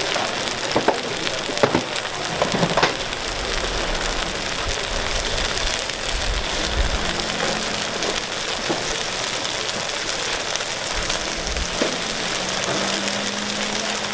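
Takoyaki batter sizzling in a takoyaki griddle, a steady hiss. There are a few sharp clicks in the first three seconds.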